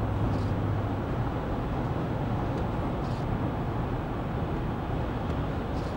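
Steady road and engine noise of a car driving, heard from inside the cabin, with a low, even hum underneath.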